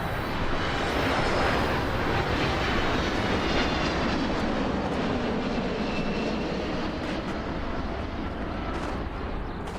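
Aircraft passing overhead: a loud roar that peaks about a second in, then slowly drops in pitch and fades as it moves away.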